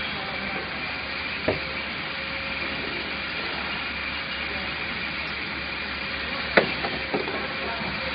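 Steady mechanical running noise with a faint constant hum from a pneumatic tray-sealing machine run without sealing film. A sharp click comes about a second and a half in, and a louder click followed by a smaller one comes near the end.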